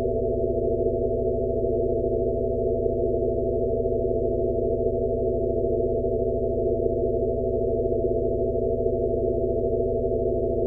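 Steady synthesized sound-therapy drone: several low pure tones layered over a band of soft low noise, held without change.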